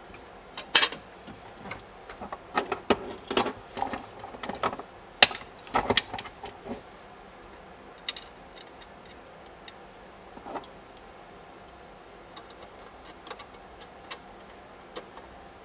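Irregular small clicks, taps and rattles of parts and fasteners being handled and fitted back together while the OnStar module housing is reassembled. The clicks come thick and fast for the first half, then thin out to a few scattered taps.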